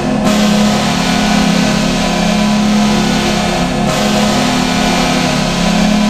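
Buffalo Sabres arena goal horn sounding one long, steady, low blast rich in overtones, the signal that the home team has scored.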